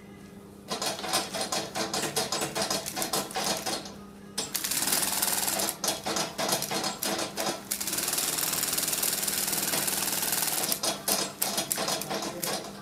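Industrial sewing machine stitching through the leather along a wallet's zip edge: rapid needle strokes in short bursts at first, then running almost without a break from about four seconds in until just before the end. A steady low hum sits underneath.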